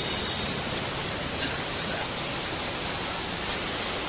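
Steady, even rushing of the swollen Godavari river in flood, its fast muddy current churning past the bank.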